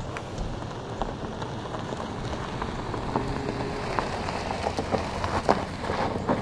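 Tyres of a Volvo SUV crunching slowly over a gravel road as it drives up and passes, growing louder, with small stones popping and crackling under the tyres most thickly in the second half.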